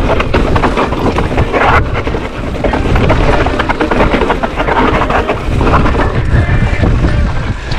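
Mountain bike descending a rocky dirt trail at speed: wind rushing over the camera microphone, tyres crunching over rock and dirt, and many small clattering knocks from the bike over the bumps.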